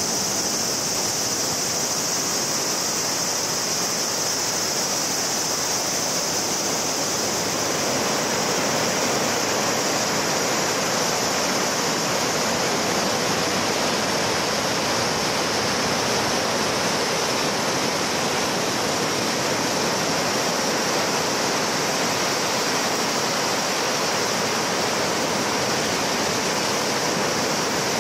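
Surf washing onto a sandy beach in a steady rush, with cicadas droning in one high, unbroken band that is strongest for the first ten seconds or so, then eases.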